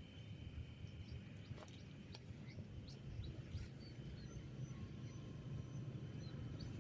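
Faint outdoor riverside ambience: a low steady rumble with scattered short, high bird chirps and a thin steady high-pitched drone.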